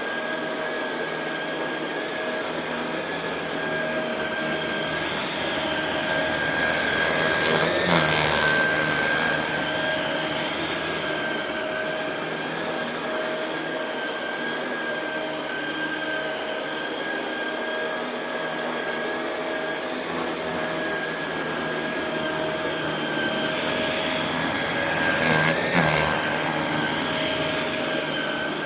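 Shark Rotator Pro Lift-Away NV500 upright vacuum running on carpet with a steady motor whine. It swells louder twice, about a quarter of the way in and again near the end.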